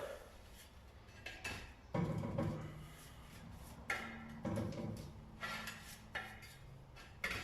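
Scattered metallic clanks and knocks, about seven, some ringing briefly, from a wheel and tyre being handled at a tyre-changing machine.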